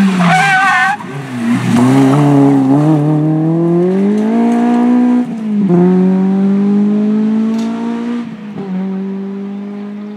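Honda Civic Type R rally car at full throttle, engine pitch climbing hard through the gears, with sharp drops at two upshifts about five and eight and a half seconds in. A brief tyre squeal in the first second. The engine note fades toward the end as the car moves away.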